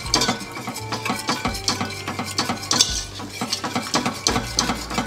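Wire whisk scraping and clinking rapidly against a stainless steel saucepan, beating milk into a butter and flour roux to make a bechamel sauce.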